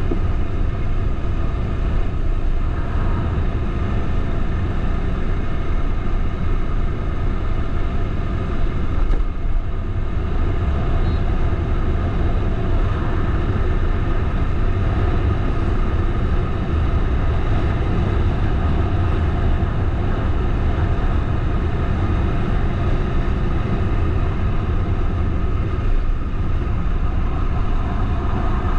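Bajaj Dominar 400's single-cylinder engine running at a steady speed while riding, with heavy wind rush on the microphone.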